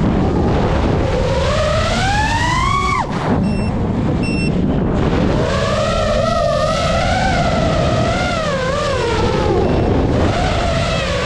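GEPRC Mark5 five-inch FPV quadcopter's brushless motors and propellers whining, the pitch climbing for a few seconds then dropping sharply as the throttle is cut. Later the pitch wavers up and down through the turns, over a steady rush of wind.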